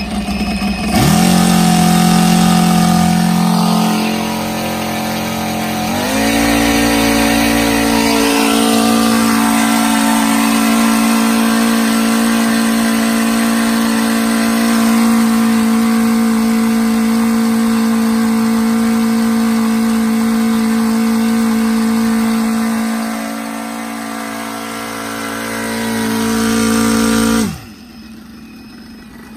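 O.S. FR5-300 five-cylinder four-stroke glow radial model aircraft engine running on a test stand and spinning its propeller. About a second in it runs up sharply to a high, steady speed, eases off briefly, then runs up again at about six seconds and holds a steady high speed; near the end it dips and climbs once more, then drops suddenly back to idle.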